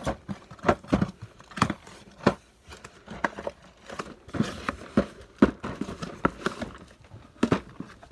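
A cardboard shipping case being handled and opened by hand: irregular knocks, scrapes and crinkles of cardboard flaps and plastic blister packs, about a dozen sharp knocks in all.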